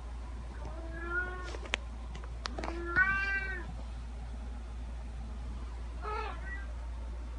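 Cat meowing three times: a rising meow about a second in, a louder meow about three seconds in, and a short one about six seconds in. A few sharp clicks fall between the first two meows.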